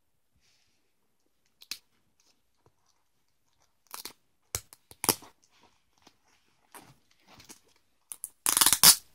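Plastic-bagged comic books being handled and shuffled: scattered short crinkles and rustles of the plastic sleeves, with a louder, longer crackle near the end.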